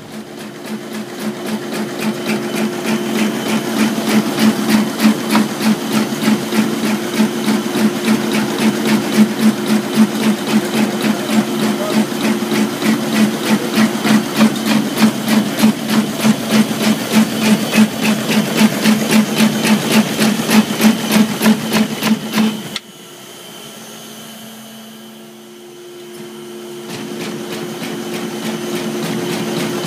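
Zahoransky ET120 4-axis CNC brush drilling and filling machine running: a rapid, even mechanical clatter of its working strokes over a steady hum. The clatter stops abruptly about three-quarters of the way through, leaving the steady hum, which grows slowly louder near the end.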